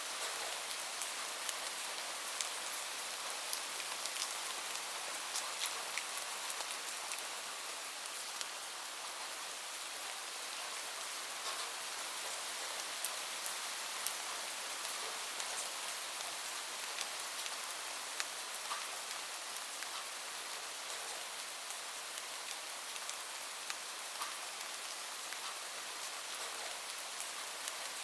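Steady rain falling, a continuous hiss with the scattered ticks of individual drops striking a surface.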